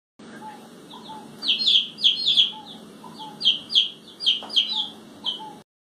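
Chicks peeping: a quick run of short, high, downward-sliding peeps, loudest in the middle, that starts and cuts off suddenly.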